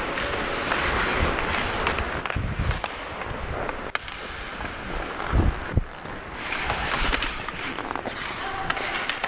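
Ice hockey skates scraping and carving on the ice, with sharp clacks of sticks or puck about four and six seconds in and low rumbling bumps on the microphone.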